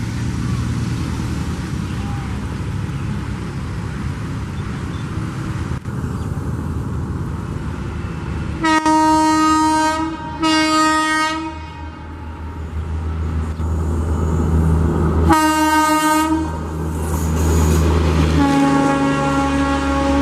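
Horn of an Indian Railways WAP4 electric locomotive: two blasts about nine and ten seconds in, a third around fifteen seconds, and a longer, lower-pitched blast near the end. Under them the steady rumble of the express train running through at speed grows heavier from about twelve seconds.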